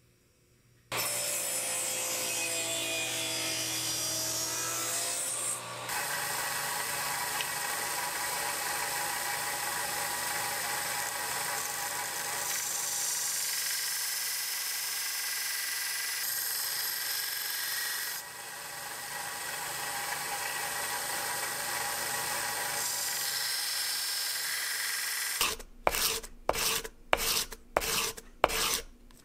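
A small belt sander running, grinding the bevel of a steel marking-knife blade made from a drill bit, heard in several short spliced clips. Near the end come about seven quick, separate strokes of the blade being honed by hand on an abrasive sheet.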